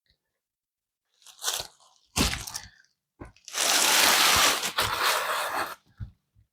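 Packaging being torn and pulled off an upholstered headboard: several short tearing, crunching bursts, then a longer loud rip of about two seconds, with a few small rustles near the end.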